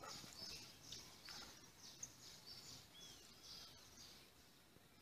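Faint bird chirping: a quick run of short high chirps that thins out after about three seconds, with one short curved whistled note about three seconds in.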